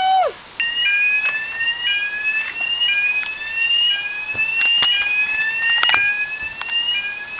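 Electronic fire alarm sounder changing to a new tone just after the start, then sounding a repeating rising sweep about once a second. A few sharp clicks come near the middle.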